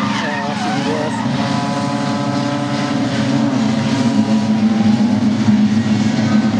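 Engines of several racing saloon cars running past together on a circuit, their overlapping notes rising and falling in pitch, over a steady low drone.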